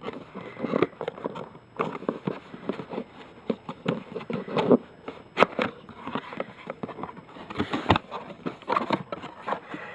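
Cardboard box being opened by hand, with irregular scraping, crackling and tapping of the box and its packaging.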